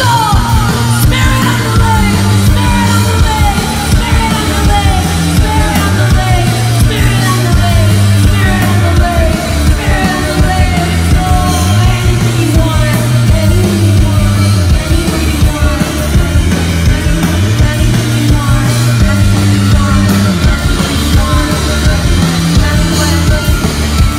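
Punk rock band playing live and loud: a repeating bass riff, driving drums and guitar, with a woman's shouted vocals over the top.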